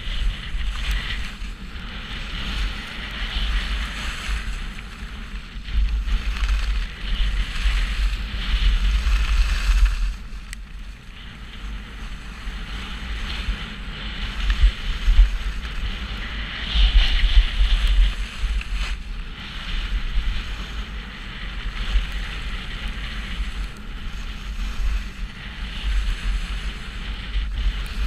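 Wind buffeting a GoPro's microphone during a fast ski descent, a gusty low rumble, under the hiss and scrape of skis on packed snow that swells and fades with the turns.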